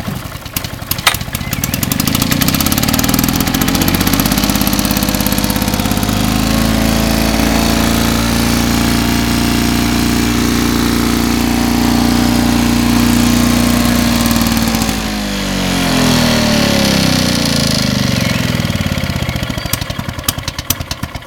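Victa 125 cc two-stroke rotary lawn mower engine zip-started, catching at once and firing unevenly for a second or two, then running steadily at speed. About fifteen seconds in the revs drop briefly and pick up again, and near the end the engine winds down and dies away. It is a freshly serviced engine with a new spark plug that runs pretty well.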